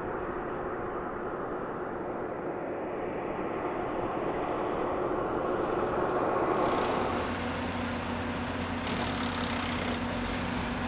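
Semi truck driving past on a highway, its engine and tyre noise building to a peak about six seconds in. It gives way to a steady low engine hum.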